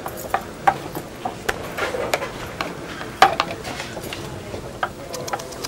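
Scattered clinks and knocks of cups, plates and cutlery, several small strikes a second with one louder clink a little past three seconds in, over a low background of people moving about.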